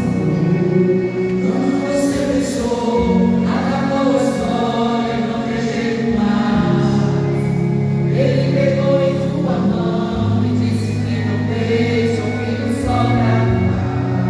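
A vocal group singing a Christian worship song in harmony, with sustained bass notes under the voices.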